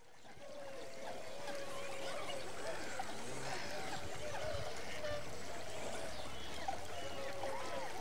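A large flock of wintering waterfowl calling together, many overlapping calls forming a steady chorus that fades in over the first second.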